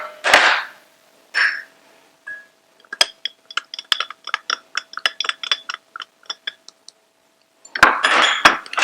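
A spoon clinking against a small bowl as spices are added: a run of quick light taps, about five a second, with short scraping, rustling bursts near the start and near the end.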